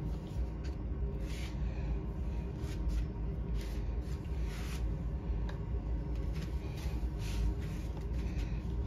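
Soft, scattered rustles and small clicks from hands working a smart deadbolt's parts and its thin connecting wire, over a steady low hum.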